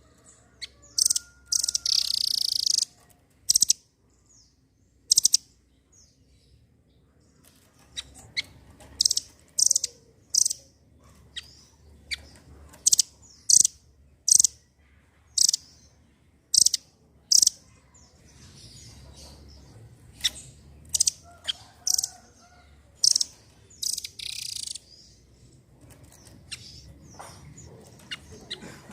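Blue nuthatch calling: a series of short, sharp, high-pitched chips in irregular runs, with a few longer buzzy rasping notes at about two seconds in and again near the end.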